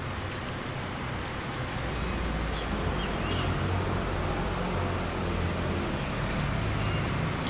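Car engine idling: a steady low hum, a little louder from about two seconds in.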